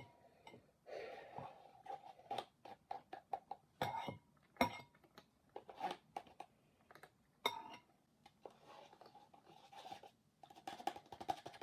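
Scattered soft clicks and taps, with faint rustling between them, from handling plastic cups and mixing slime ingredients in a bowl.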